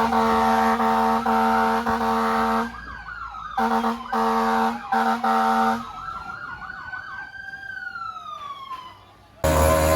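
Emergency vehicle siren: a steady horn tone, broken off twice, alternating with fast yelping pitch sweeps, then one slow wail that rises and falls. Music starts abruptly near the end.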